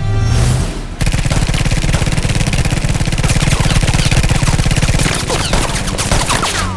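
Dense, very rapid gunfire, an unbroken volley of shots, starting about a second in after a rising sweep. It thins out near the end, where a few falling pitched sounds come through.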